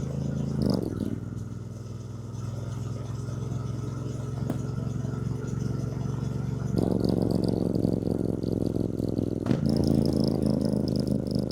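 2024 Triumph Bonneville T120's 1200 cc parallel-twin engine. It drops to low revs about a second in and runs steadily. Then, about seven seconds in, it is opened up and gets louder, with a quick gear change near the end.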